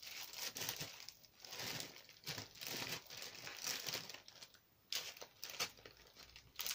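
Hands rummaging through a pile of craft supplies: irregular rustling, with several sharp clicks as items are pushed aside and picked up.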